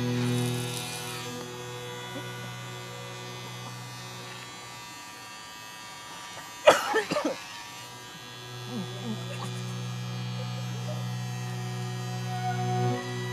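Kemei electric hair clippers buzzing steadily as they shave a dog's matted coat; the buzz weakens for a few seconds in the middle. About halfway through, a short loud cry cuts in briefly.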